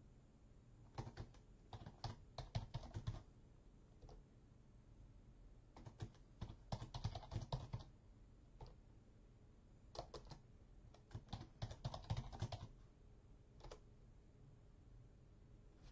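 Faint typing on a computer keyboard, in three short bursts of keystrokes a few seconds apart.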